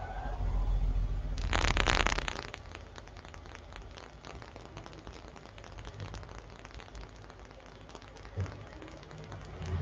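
A person's long, breathy exhale about a second and a half in, during a forward-folding yoga stretch. After it comes a faint, irregular crackle of small clicks.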